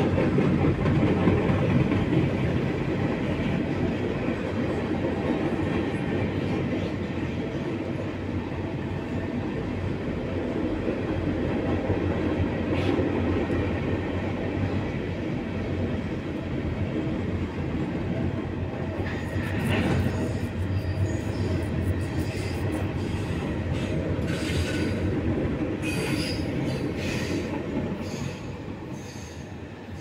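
Freight cars rolling past close by: a steady rumble of wheels on rail, with wheel clacks over the rail joints and some high wheel squeal in the second half. The sound falls away near the end as the last car passes.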